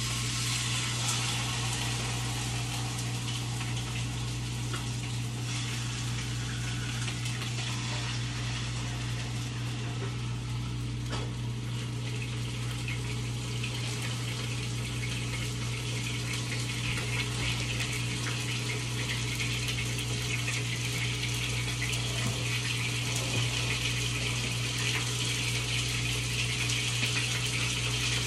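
Water running steadily from a kitchen tap, turned on abruptly, over a steady low appliance hum.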